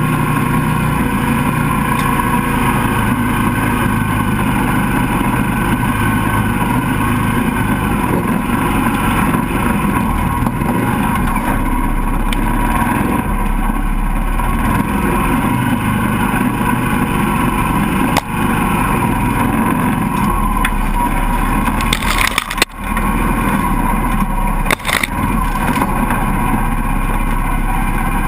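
Mini swamp buggy's engine running steadily under load as the buggy drives. A few sharp knocks, with brief dips in the engine sound, come in the later part.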